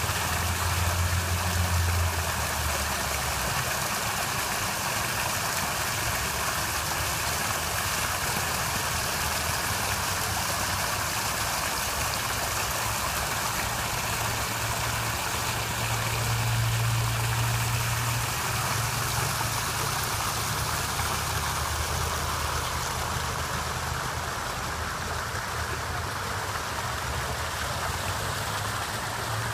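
Small artificial garden waterfall pouring over rocks into a pool: a steady rushing and splashing of water. A low rumble swells and fades underneath it a few times.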